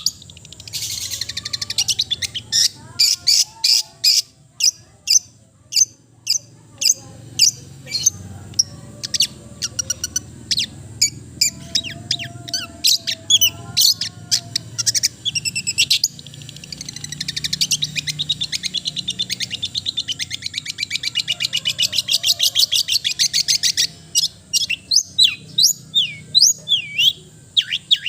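Long-tailed shrike (cendet) singing a fast, varied string of sharp chips and whistles, with a long rapid trill in the middle and quick down-slurred whistles near the end.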